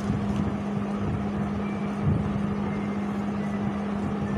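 A steady low hum over a constant background rush, with a faint low bump about two seconds in.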